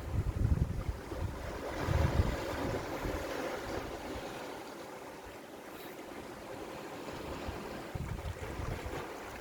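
Sea waves washing against a rocky shore, the wash swelling about two seconds in and then easing off. Gusts of wind buffet the microphone with low rumbles near the start, around two seconds in, and near the end.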